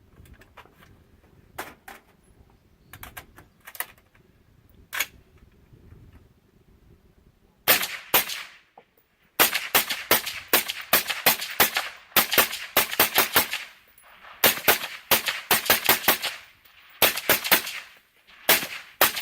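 Suppressed AR-15 in .223/5.56 firing semi-automatic through a Huckleberry suppressor: a few quieter single shots first, then fast strings of shots, several a second, from about eight seconds in.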